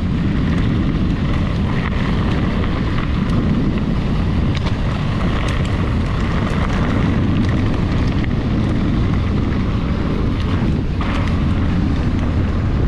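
Wind rumble on an action camera's microphone and mountain bike tyres rolling over a gravel dirt track, loud and steady, with a few short clicks and knocks from the bike and the stones.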